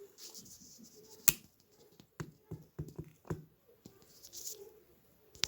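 Scattered handling clicks and taps, a few sharp and several lighter, from hands working with a small test light and its clipped ground lead, with a brief rustle near the end.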